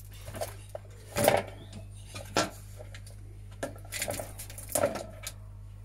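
Scattered clicks and knocks of hard plastic and small metal parts as wires are pulled off and a hand tool works inside an opened CD cassette player's casing.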